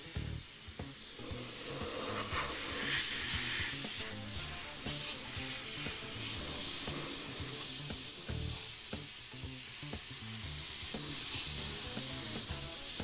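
Compressed-air blow gun hissing steadily as it blows trapped water out from under the scupper's metal flashing on the rubber roof, with background music underneath.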